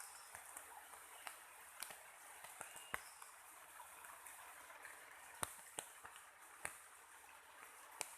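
Faint light rain: a steady hiss with single drops ticking sharply at irregular moments.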